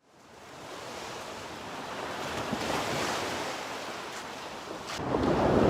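Ocean surf fading in from silence: waves washing, swelling and then growing louder about five seconds in.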